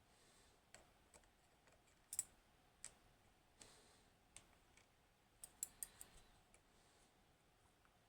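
Faint, irregular clicks and taps of small metal lock parts being handled while a pin-tumbler padlock is taken apart, with a tight cluster of quick clicks past the middle.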